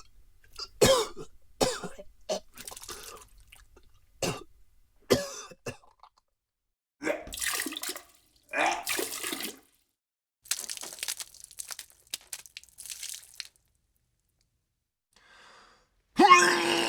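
A person retching and gagging in a series of short, sharp heaves, followed by two longer spells of vomit spattering out as liquid. A loud new retch begins just before the end.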